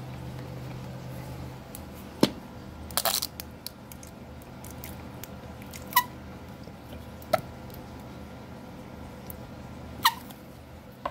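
A plastic ketchup squeeze bottle being handled and squeezed onto a metal oven tray: a few sharp clicks and clacks, two of them ending in a short falling squeak, over a faint steady hum.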